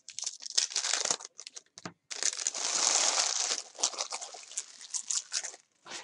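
Foil wrappers of 2017-18 Panini Hoops basketball card packs being torn open and crinkled: a run of short crackles, with one longer, louder tear about two seconds in.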